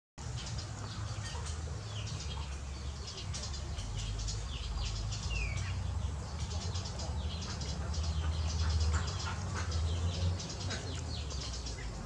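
A colony of baya weavers chattering: many short, high chirps from several birds at once, over a steady low rumble.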